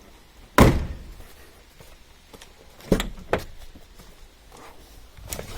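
A single loud thunk about half a second in, then two lighter knocks in quick succession around three seconds in, and a fainter knock near the end.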